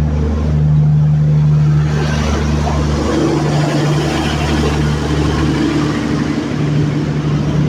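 Train's diesel engine running with a steady low hum as the train departs, with a broader rumble and rattle building up after about two seconds.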